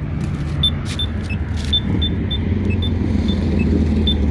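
Steady low rumble of passing road traffic, with short high beeps from accessible pedestrian signal pushbutton locator tones (Polara Bulldog) at two pitches, repeating a few times a second.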